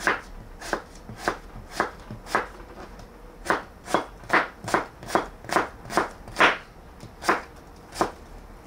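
A knife dicing apple into small cubes: a string of sharp, separate chops, about twenty in all, quickening to about three a second in the middle.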